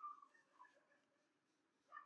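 Near silence: quiet room tone with a couple of faint, brief sounds near the start and near the end.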